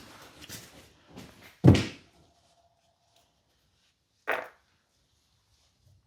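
Handling noises and knocks of parts and tools on a workbench as a carburetor's float bowl is taken off. There are small knocks at first, then two louder thunks, one near two seconds in and one a little past four seconds.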